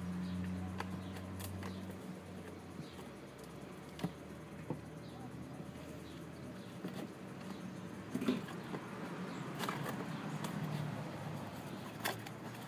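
Cardboard box and packaging being opened and handled: scattered clicks, scrapes and crinkly rustling. A low steady hum fades out about two seconds in.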